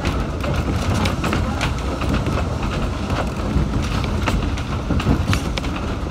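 Manx Electric Railway electric tram running along the track, heard on board: a steady low rumble with irregular clicks and knocks of wheels over rail joints, one harder knock about five seconds in.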